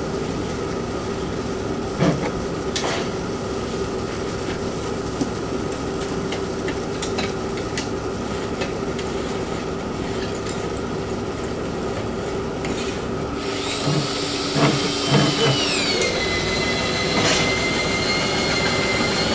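Insulation blowing machine running steadily, driving cellulose through a hose into a house wall, with a few short knocks. About two-thirds of the way in a high whine joins, drops in pitch a couple of seconds later and then holds steady.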